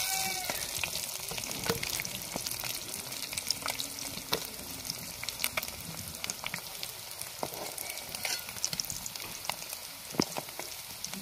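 Masala-coated fish pieces frying in hot mustard oil in a metal kadai: a steady sizzle full of small crackles, with scattered sharper clicks of a metal spatula against the pan as the pieces are turned and lifted out.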